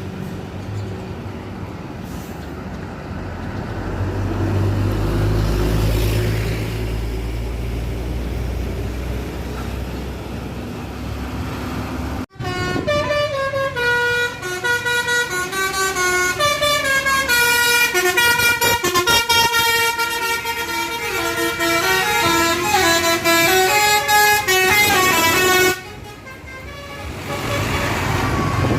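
A heavy vehicle's engine rumbles for the first dozen seconds. After a sudden break, a tourist bus's basuri musical horn plays a tune of stepping notes for about twelve seconds and cuts off abruptly.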